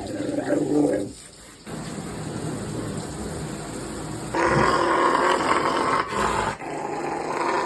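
Rottweiler's low rumbling 'purr', a growl-like sound of contentment, held in long stretches and louder from about four seconds in.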